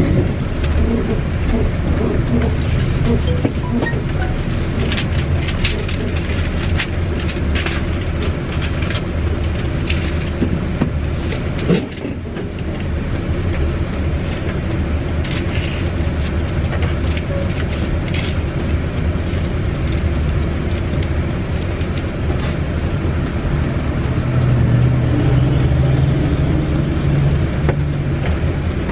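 Mitsubishi Fighter truck's diesel engine running at low revs, heard from inside the cab, with sharp rattling clicks from the cab fittings during the first half. The engine note swells a little near the end.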